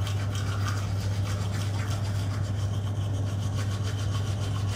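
Toothbrush scrubbing teeth with quick, even back-and-forth strokes, over a steady low hum.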